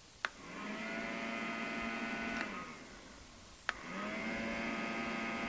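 Small fan motor of a Petacc electric bee smoker, powered by four AA batteries, run twice by its push-button for about two seconds each: a click, then a steady hum that spins up, holds while the button is held, and winds down on release. Not a real loud motor or fan.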